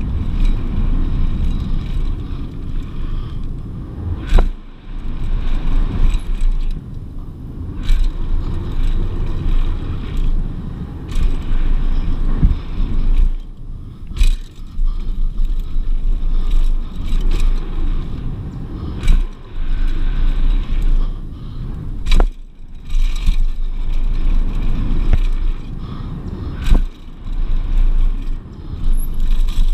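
Mountain bike descending a dirt trail at speed: wind rumbling on the camera microphone, with tyre noise on the dirt and several sharp knocks from the bike over bumps.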